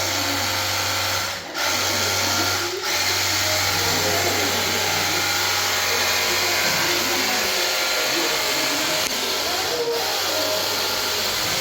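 Pressure washer running, its jet spraying a wall: a steady hiss of water over a steady motor hum, with two brief dips in the first three seconds.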